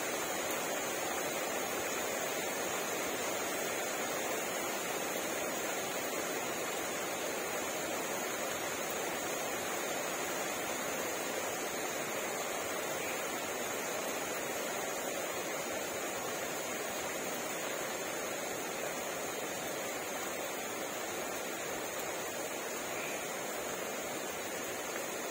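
Steady rain falling on garden plants and surfaces, an even hiss with no breaks.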